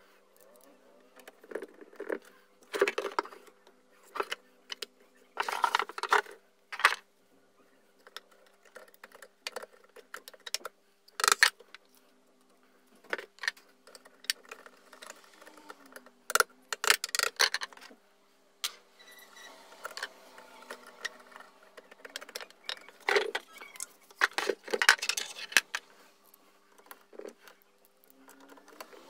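Irregular metal clicks, clinks and short scrapes of screwdrivers working on the screws of an old electric hand planer's housing and being set down on a wooden bench.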